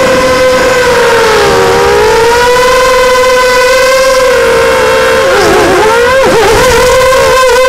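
FPV racing quadcopter's brushless motors and propellers whining, a steady high-pitched drone that dips briefly about a second and a half in. From about five seconds in the pitch swoops rapidly up and down as the throttle is worked through a roll.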